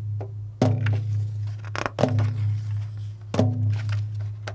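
A slow, steady drum beat: three strokes about a second and a half apart, each a sharp hit followed by a deep ringing tone that carries on until the next stroke.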